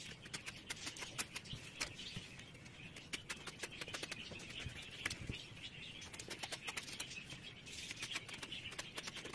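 Kitchen knife cutting the skin off eggplant pieces on a wooden cutting board, a faint run of rapid small crackling clicks.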